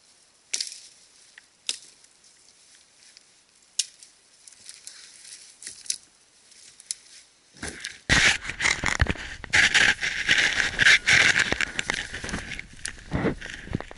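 A few sharp, widely spaced axe knocks on wood in the first half. About halfway through, loud continuous rustling and scraping begins as the camera is handled and brushed through spruce branches and snow.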